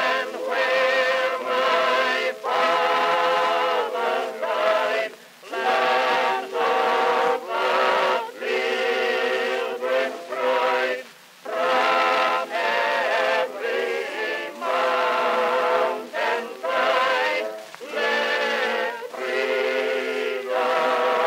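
Background music, most likely choral singing: sustained, wavering notes in phrases broken by brief pauses. No firework bangs are heard.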